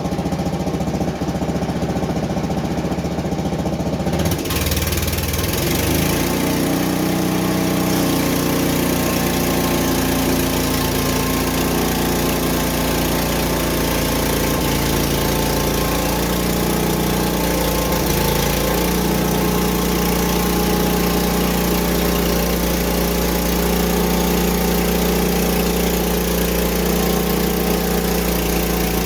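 Frontier OS23 portable band sawmill's small engine running steadily; about four seconds in a steady hiss joins as the band blade cuts into a pine log, and the engine's pitch dips briefly under the load.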